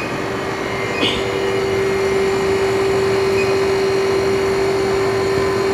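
Ultra-low-temperature LCD freezer machine running as its cooling plate is pulled down toward −164 °C: a steady noise of refrigeration machinery with a strong, even hum. A short click comes about a second in, after which it runs slightly louder.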